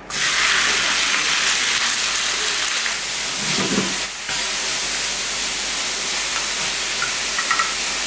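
Sliced pork sizzling loudly in a hot frying pan, the sizzle starting suddenly as the meat goes in and holding steady while it is stirred with chopsticks.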